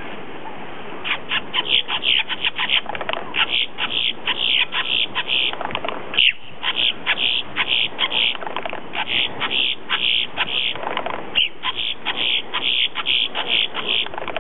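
A grackle calling in a rapid, almost unbroken series of short high notes, starting about a second in, with one brief pause midway.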